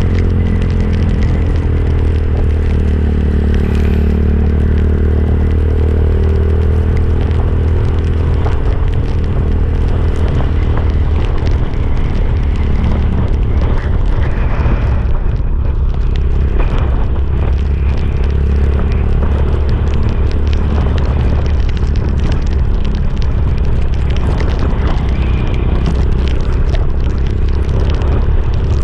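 Motorcycle engine running at steady road speed under heavy wind rumble on the microphone, its pitch drifting slightly.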